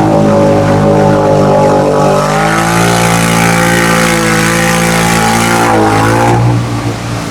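An off-road vehicle's engine held at high revs running through a mud hole, its note shifting about two seconds in. A rushing hiss joins for a few seconds, then the engine note drops near the end.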